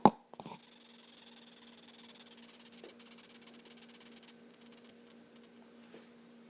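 Velvet ant (cow killer) stridulating: a rapid, high-pitched rasping squeak for about four seconds that then fades to faint scattered clicks. This is the warning sound it makes when disturbed. A sharp knock at the very start is the loudest thing, and a steady low hum runs underneath.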